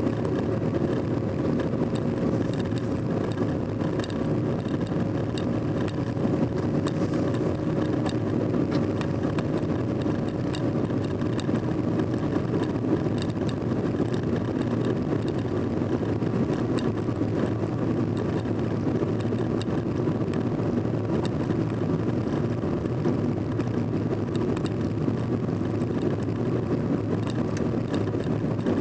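Steady engine hum and tyre noise inside a car cruising at an even speed on an asphalt road, with scattered faint ticks.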